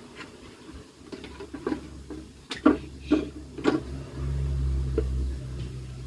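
Kick scooter clattering on the ground: a handful of sharp knocks of deck and wheels bunched together about halfway through, followed by a steady low rumble.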